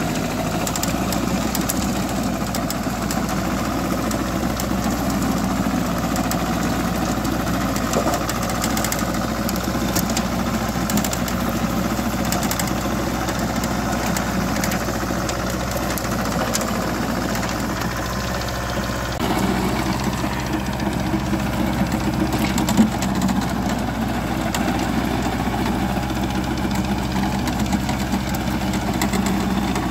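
Small tractor's engine running steadily while driving a rear-mounted PTO rotary tiller through soil, with faint clicking and clatter from the tiller, and one sharp knock about three quarters of the way through.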